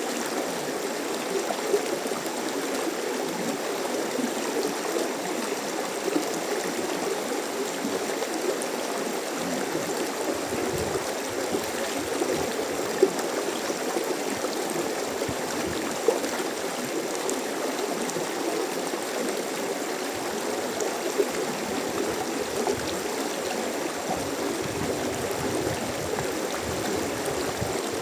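Mountain stream flowing steadily over rocks, with a few brief louder splashes.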